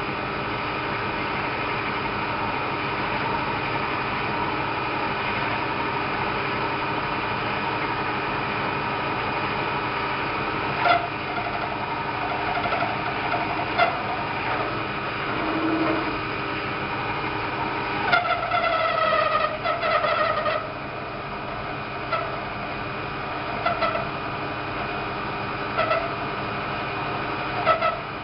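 Small metal lathe running steadily under power while turning metal stock between centres. From about ten seconds in, the cut gives short squeals and clicks, with one longer, wavering squeal about two-thirds of the way through, as long stringy chips come off the workpiece.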